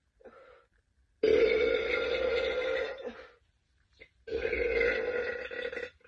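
A woman burping twice, two long burps. The first runs about two seconds from just over a second in; the second lasts about a second and a half near the end.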